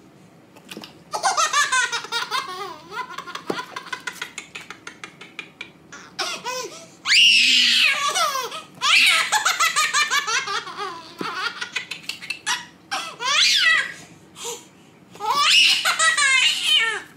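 Baby laughing hard: a run of quick giggles, then several loud, high-pitched belly laughs and squeals with short pauses between.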